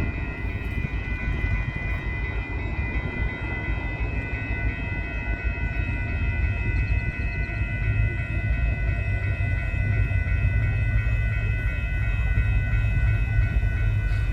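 Union Pacific intermodal freight train rolling slowly, a steady low rumble with steady high-pitched tones ringing over it, growing a little louder in the second half.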